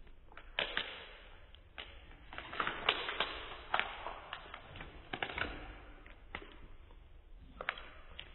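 Foil trading card packs crinkling and rustling as they are handled and pulled from a cardboard display box, with irregular sharp crackles and taps.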